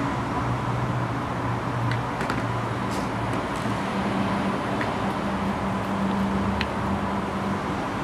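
Steady low mechanical hum over a constant rush of background noise, with a few faint clicks.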